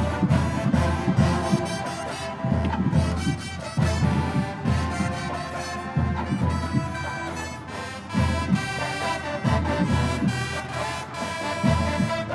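Marching band playing a slow ballad, with the trombone section carrying the melody in long held notes over steady bass drum beats.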